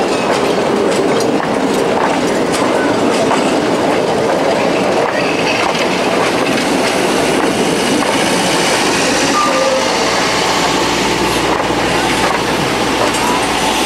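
Knox & Kane Railroad passenger coaches rolling along the rails: a steady rumble of wheels on track with clicks, and a few brief faint squeals in the second half.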